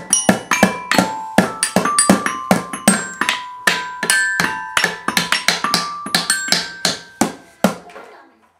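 Child's toy glockenspiel struck rapidly and unevenly with mallets, its metal bars ringing, mixed with beats on a small wooden toy drum. The strikes come several a second and stop shortly before the end.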